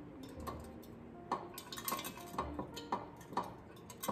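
Glass canister handled on a stone countertop: a series of light clinks and knocks, about eight in four seconds, some with a short ring.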